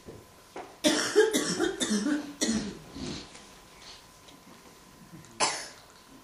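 A person coughing: a quick run of hard coughs about a second in, then a single cough near the end.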